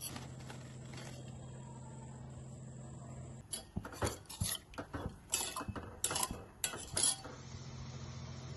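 A metal spoon clinking and scraping against a metal pot in a quick run of about a dozen strokes, from about three and a half seconds in to about seven seconds. A steady low hum runs underneath.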